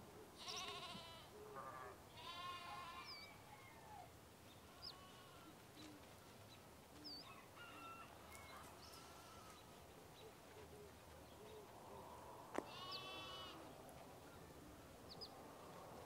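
Farm animal bleating: a few quavering bleats in quick succession in the first three seconds, and one more near thirteen seconds. A sharp click comes just before the last bleat, and faint high chirps are scattered between the bleats.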